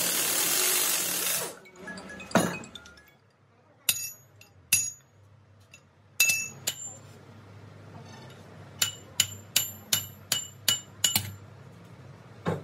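Pneumatic impact wrench running briefly on a bearing puller's screw with a loud hiss of air. Then come a few metal clinks and a quick run of about nine ringing hammer blows on a steel bar, driving gears off a gearbox main shaft.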